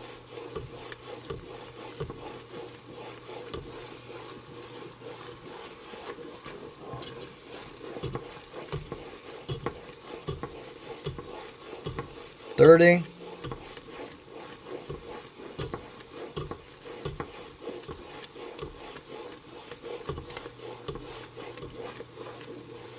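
A wooden spoon stirring boiling sugar syrup in a metal pot, with irregular small clicks and scrapes against the pot over the syrup's sizzling bubbling. The syrup is being cooked to the soft-ball stage for bee fondant, nearing 230°F.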